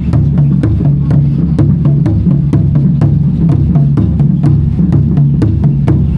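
Loud music with a fast, steady drum beat, about three to four strokes a second, over a low bass line.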